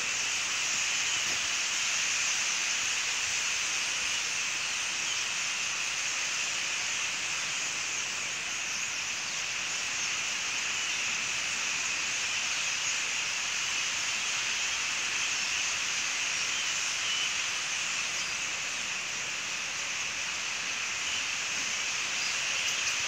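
Huge flock of starlings chattering in their roost trees at the morning gathering, so many birds calling at once that their voices blend into one dense, steady, hiss-like din.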